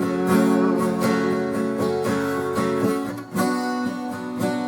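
Acoustic guitar strummed as song accompaniment between sung lines, with a fresh strum after a brief dip about three seconds in.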